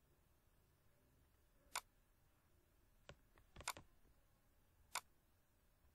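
Computer mouse clicking: about five sharp single clicks over near silence, two of them in quick succession about halfway through.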